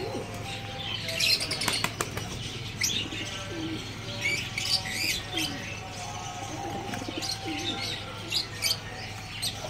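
White fantail pigeons flapping their wings and cooing as they crowd in and hop up onto hands to feed, with scattered high chirps.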